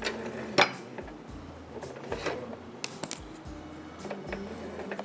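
Light clinks and knocks of kitchen utensils being handled at a counter, the sharpest about half a second in, over soft background music.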